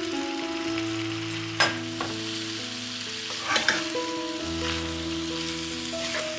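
Food sizzling as it fries in a pan while being stirred, with a sharp utensil knock about a second and a half in and two more knocks a couple of seconds later.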